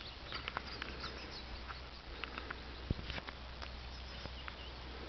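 Quiet rural outdoor ambience: faint, scattered chirps of distant small birds over a low steady background noise, with a few light clicks and one soft knock about three seconds in.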